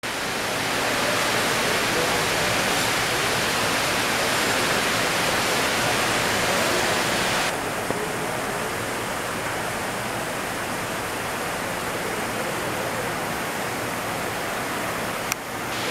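Water from a stone lobby fountain pouring from its upper bowl into the basin, a steady splashing hiss. About halfway through it turns a little duller, and a brief click comes near the end.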